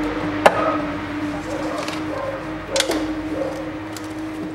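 Two sharp clicks about two seconds apart as the intake manifold is handled and fitted onto the engine, parts knocking against each other, over a steady hum.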